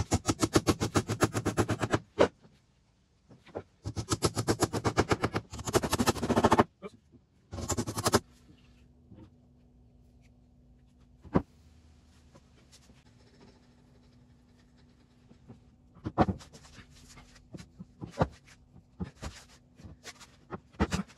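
Wooden mallet driving a dowel into a draw-bored mortise-and-tenon joint: three fast runs of sharp knocks over the first eight seconds. After that, a faint steady hum with scattered knocks of heavy timber as the bench frame is handled.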